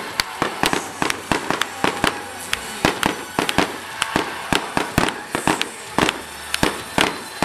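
Fireworks display: aerial shells bursting in a rapid, irregular string of sharp bangs, about three or four a second.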